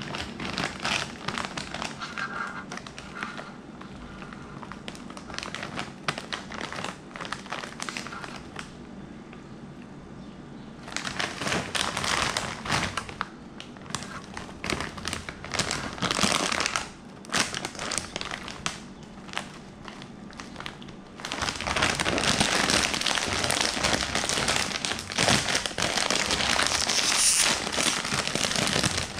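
A metallized plastic snack bag crinkling as it is handled and turned over in the hands, becoming louder and denser about two-thirds of the way through as the bag is gripped at the top and pulled open.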